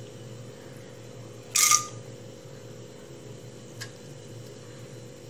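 Chana dal dropped into hot oil in a wok: one short sizzling hiss about one and a half seconds in, over a faint steady hum, with a faint click near the end.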